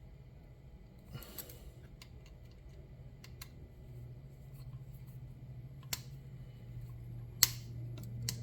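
Light clicks and taps of small metal parts being handled and fitted, with a brief scrape about a second in and a sharper click near the end, over a low steady hum.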